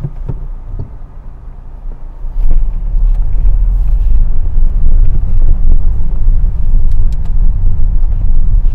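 Car engine and road noise heard from inside the cabin: a quieter low rumble at first, then about two and a half seconds in it grows much louder as the car pulls away and drives on.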